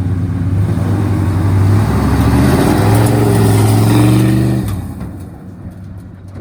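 A vehicle engine running and revving: its note climbs in pitch about two and a half seconds in, holds there, then drops away near five seconds.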